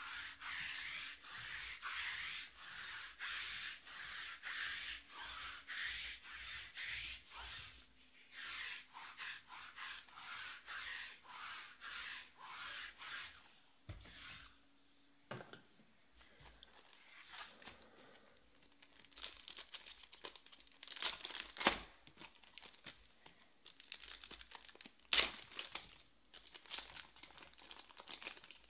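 Sticky lint roller rolled back and forth over a cloth table mat, a rhythmic crackling rip about twice a second that stops about halfway through. Then foil trading-card packs crinkle and crackle sharply as they are handled and opened.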